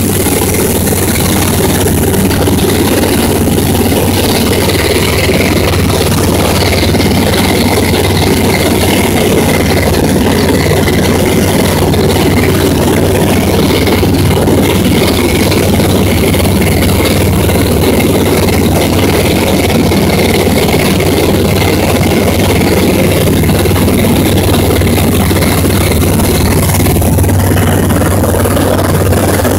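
Single-engine light aircraft's engine and propeller droning steadily in flight, heard from inside the cockpit, with a constant hiss of air over the cabin.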